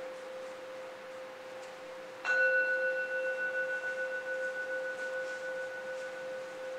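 A single bell-like note rings on steadily, struck again about two seconds in, then slowly dies away with a gentle wavering.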